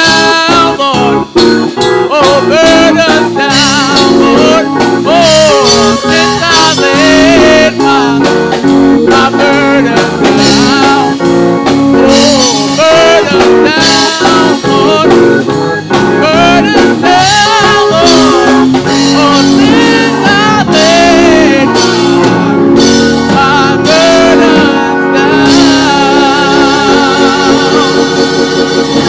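Gospel song sung by a man into a handheld microphone, his voice wavering with vibrato, over keyboard accompaniment with a steady beat.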